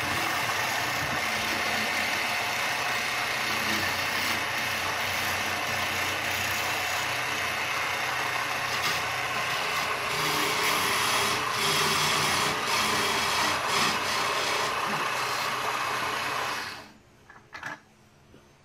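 Wood lathe running with a hand tool scraping against the spinning wooden baluster: a steady motor hum under a rough scraping noise. Near the end it cuts off suddenly, followed by a couple of light knocks.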